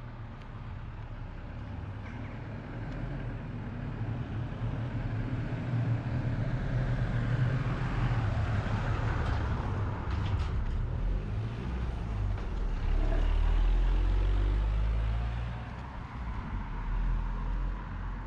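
Road traffic: a motor vehicle passing close by on the street, its engine rumble and tyre noise swelling to a peak and then dropping off sharply near the end.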